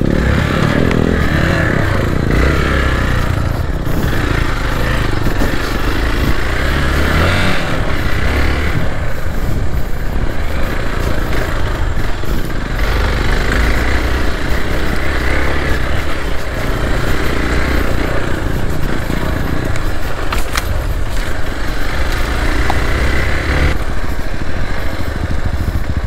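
Hero Xpulse 4V motorcycle's single-cylinder engine running as the bike is ridden off-road, its note swelling and easing with the throttle.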